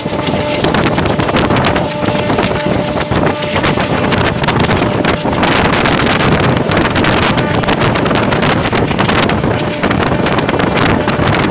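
Passenger train running at speed, heard from an open coach door: heavy wind buffeting the microphone over a steady clatter of wheels on the track.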